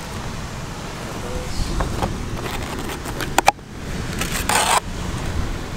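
Low wind rumble on the microphone, with takeout packaging being handled: styrofoam clamshell boxes and a plastic bag. A few sharp clicks come about three and a half seconds in, and a short rustle follows about a second later.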